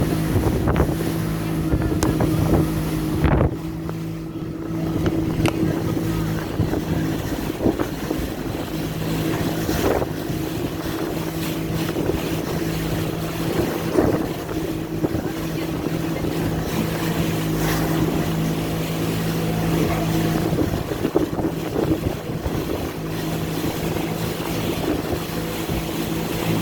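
Motorboat engine running steadily with a constant low hum, under wind noise on the microphone and scattered sharp knocks.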